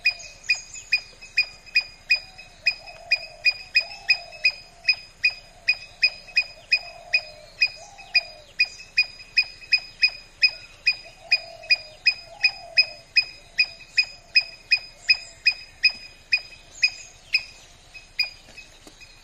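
A high, sharp chip call repeated steadily about two and a half times a second, stopping shortly before the end: a small animal or bird calling.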